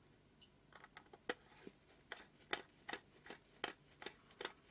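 Faint, sharp clicks of small metal lens parts being handled as a cleaned element is fitted back into a Leica Summilux 50mm f/1.4 lens. There are about a dozen, irregular at first, then settling into two or three a second.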